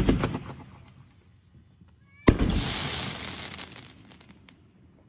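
Reloadable firework shell fired from a mortar tube: the launch thump is fading as the shell climbs, then about two seconds in it bursts overhead with a loud bang and a crackling tail that fades over about two seconds.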